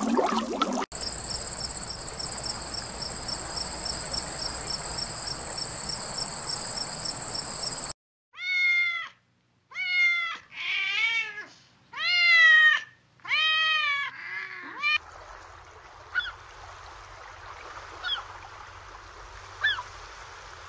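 A domestic cat meowing several times, each meow a separate arched call rising and falling in pitch. Before it comes a steady high-pitched buzz with a fast pulse lasting about seven seconds, and after it a few faint bird chirps.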